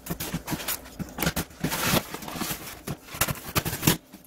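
Styrofoam box being worked open by hand, its lid pried off: a rapid run of foam scraping and knocking that stops suddenly near the end.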